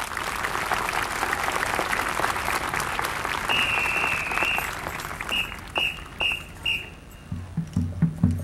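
Crowd applauding, then a drum major's whistle: one long blast followed by four short, evenly spaced blasts counting the band off. A drumline comes in with low beats near the end.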